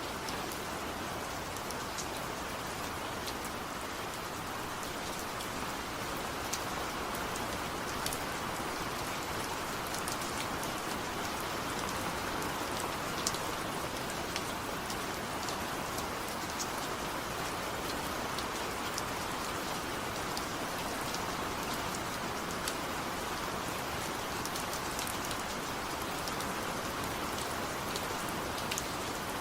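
Steady rain falling, a constant hiss with scattered sharp drop ticks hitting a hard surface.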